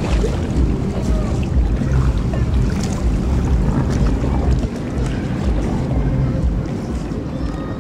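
Low, steady rumble of a passing Horizon 10 high-speed passenger ferry and its wake, with heavy wind buffeting on the microphone.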